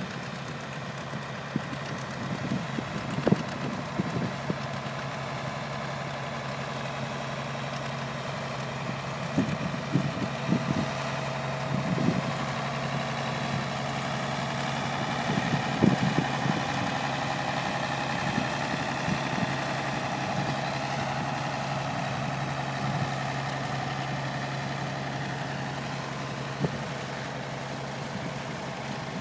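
Old tractor engines running steadily as a line of classic tractors drives slowly past; a red Farmall passes close around the middle, its engine note getting louder and then fading. A few short thumps stand out in the first half.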